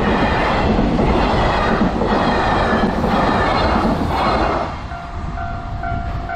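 Freight train's wagons rolling past close by, wheels clattering on the rails with a swell about once a second. The rolling noise falls away near the end, leaving a level-crossing alarm ringing.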